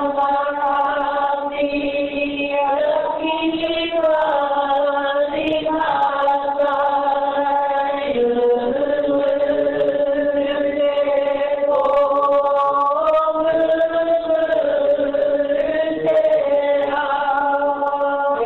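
A group of voices chanting a Māori mōteatea in unison, long held notes on a narrow range of pitch that step up or down now and then.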